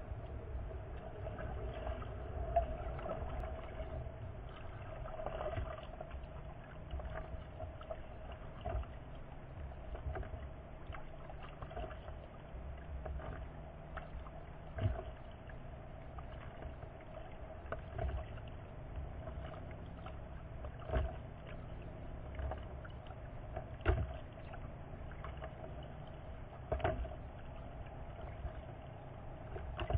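Kayak paddling on a lake: water splashing with a short knock about every three seconds, over a low steady rumble and a faint steady hum.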